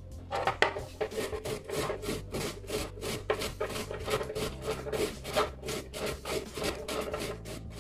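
Raw cauliflower being grated on a flat stainless steel hand grater: a steady run of quick scraping strokes, about three to four a second.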